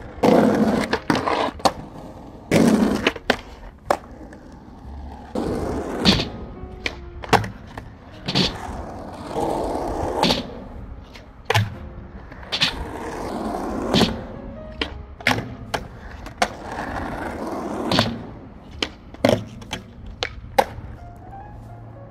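Skateboard on Independent Stage 4 trucks rolling over concrete, with repeated sharp clacks and slaps from the board popping, landing and hitting obstacles during a skate session.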